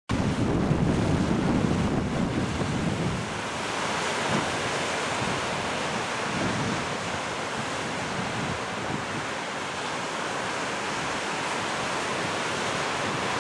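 Ocean surf: small waves breaking and washing up a sandy beach in a steady hiss, with wind buffeting the microphone, strongest in the first three seconds.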